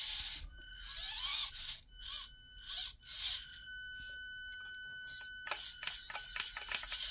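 Axial SCX24 C10 micro crawler's 80-turn brushed motor and gears whirring in short throttle bursts as it claws up a wall, with a steady high-pitched whine from the ESC between bursts. A quick run of clicks and rattles follows in the last couple of seconds.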